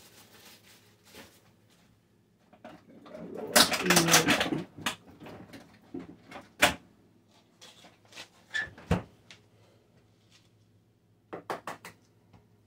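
Off-camera kitchen handling noises: a rustling clatter about four seconds in, then scattered sharp clicks and knocks, with a quick run of clicks near the end.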